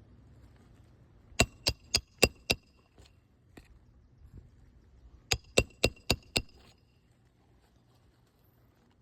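Roofing hammer striking a steel roof snake to drive roofing nails back in under a three-tab shingle: two runs of five sharp blows, about four a second, each with a metallic ring.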